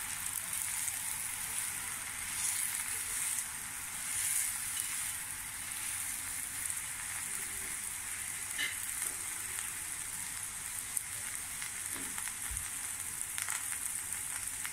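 Ghee sizzling steadily under a chicken keema stuffed paratha shallow-frying on a flat tawa, a steady hiss with a couple of faint pops.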